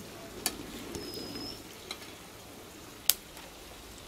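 Batter-coated chicken pieces deep-frying in hot oil in an iron kadai, a low steady crackle with three sharp pops, the loudest about three seconds in. A bird gives a short high whistle about a second in.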